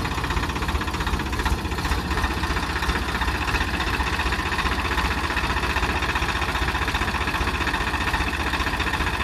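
Swaraj 744 XT tractor's three-cylinder diesel engine running steadily.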